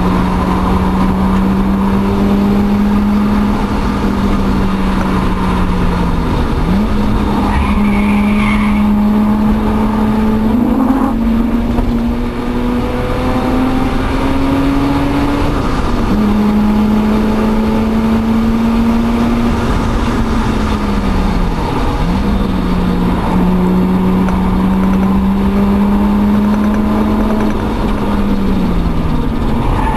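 Mazda RX-8's twin-rotor Renesis rotary engine under load, heard from inside the cabin. Its pitch climbs slowly, then falls off sharply about four times.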